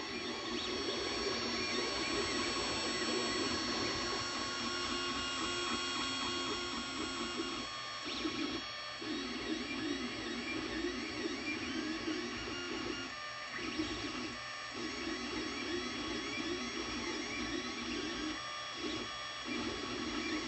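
Anycubic Mega Zero 3D printer at work near the end of a print: its stepper motors whir as the print head moves, under several steady high tones. The motor sound stops briefly a few times in the second half.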